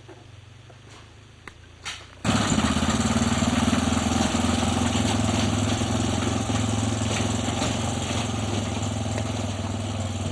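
Small engine of a three-wheeled mototaxi running steadily. It cuts in abruptly about two seconds in and then fades slowly.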